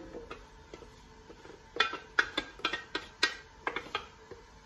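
Wooden spatula knocking and scraping inside a stainless-steel Thermomix jug to get the last of the sauce out: a run of about ten quick knocks, each with a short metallic ring, starting about two seconds in.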